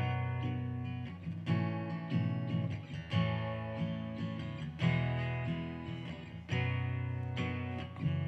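Acoustic guitar strummed in an instrumental passage. Each accented strum lands about every one to two seconds, and its chord rings and fades before the next.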